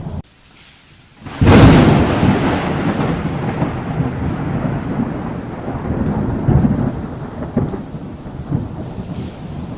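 Thunderstorm with rain: after a brief lull, a sudden loud clap of thunder about a second and a half in, then rumbling that slowly fades over steady rain.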